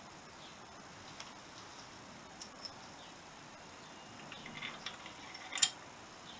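Hand-tool and metal clinks while bolting an engine into a motorcycle frame: a few scattered sharp clicks, then a short rattle of small clinks and one loud click near the end.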